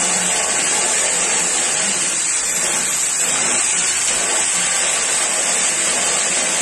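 Handheld electric drill with a high-speed steel burr bit running steadily, spinning free before it is put to the wood.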